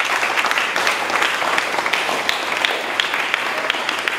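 A congregation applauding: many hands clapping at once, steady throughout.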